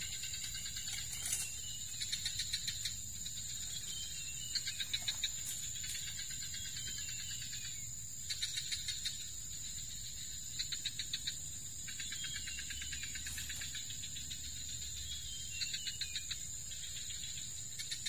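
Forest ambience: a steady high-pitched insect drone, with short rapid clicking trills of under a second each, repeating every couple of seconds.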